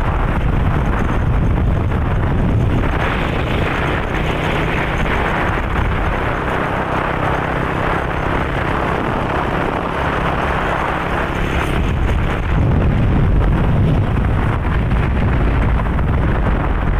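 Wind noise on the microphone of a moving motorcycle, with the engine running underneath: a loud, steady rumble.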